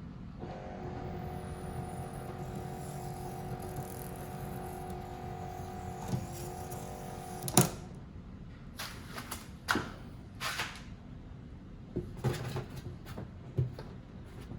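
Power antenna motor of a 2002 Lexus RX300 running with a steady whine for about seven seconds as the new mast extends, stopping with a sharp click when it reaches the top. Several light clicks and knocks follow.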